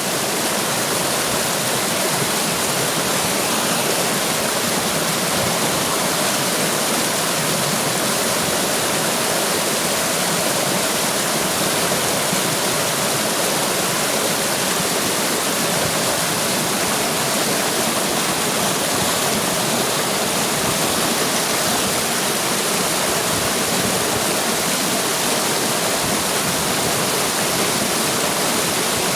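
Water rushing and splashing over rocks, like a small waterfall or fast stream: a dense, steady roar with no break.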